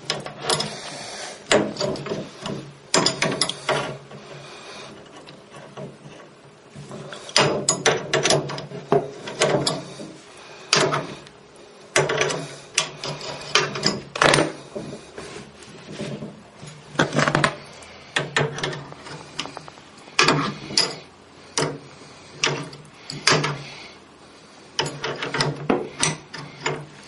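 A hand tool working loose the coupling nut of a toilet's water supply line: irregular metal clicks, knocks and scraping, in uneven clusters.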